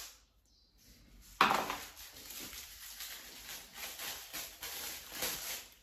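A sharp knock about a second and a half in, then irregular scraping and light clicks of a brush working in a small pot of warm hide glue.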